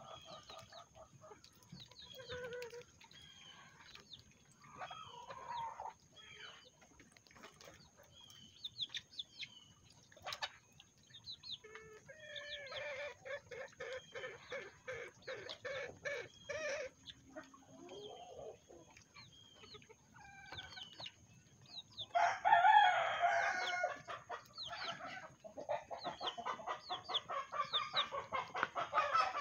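Flock of Old English Game bantam chickens clucking and calling. There is a run of quick, even cackling notes near the middle, one louder, longer call about three-quarters through, and rapid cackling again near the end.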